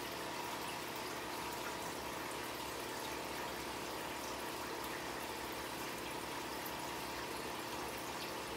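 Steady running-water noise of a home aquarium's water circulation, an even hiss with a faint steady tone under it.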